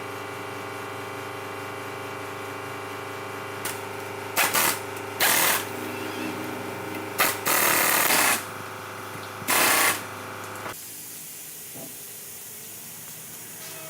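A motor hums steadily, with several short, loud bursts of hissing over it, the longest about a second. The hum cuts off suddenly near the end.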